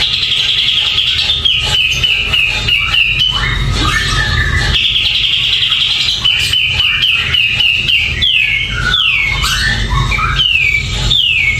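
Caged kapas tembak bulbul singing in full voice, called gacor: quick runs of short, high whistled notes, many sliding downward, repeated in rapid trains with brief gaps.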